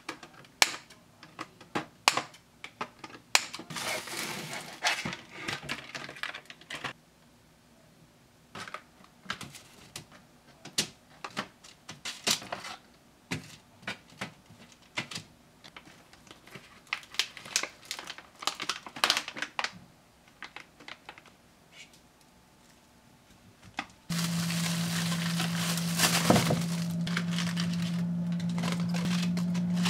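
Scissors snipping through a stiff plastic blister pack, with crinkling and crackling plastic, then scattered clicks, taps and packet rustling from kitchen handling. About 24 s in, a steady rush of tap water starts suddenly for washing lettuce, with a low hum under it.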